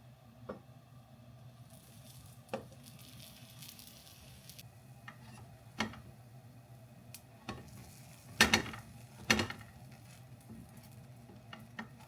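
Kitchen cooking sounds: scattered light knocks and clinks of utensils, with two louder clatters about eight and a half and nine and a half seconds in, and a short sizzle of frying about two seconds in, over a low steady hum.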